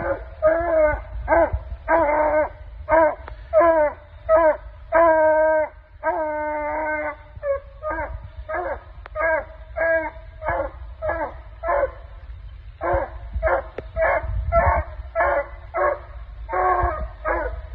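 Female hound bawling: an unbroken run of loud barks, two or three a second, with a few longer drawn-out bawls mixed in.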